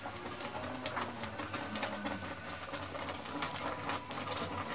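Thickened bottle-gourd kheer simmering in a pan: a steady run of small irregular pops and ticks.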